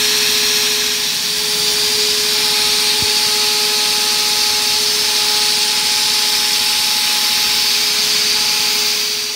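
CNC router spindle running steadily as a small end mill cuts aluminium plate: a steady whine with a loud hiss over it, and a faint extra tone joining a few seconds in.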